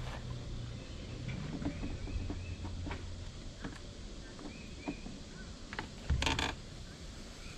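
Outdoor yard ambience with a bird calling in short repeated chirps, a few light taps, and a low rumble. About six seconds in, a brief loud scrape from a stain brush scrubbing along the deck boards.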